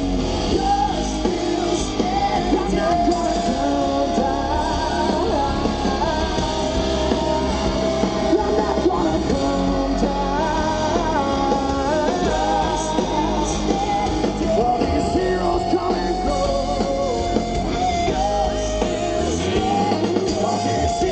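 Live rock song: a male lead singer sings long held notes over electric guitar and a full band.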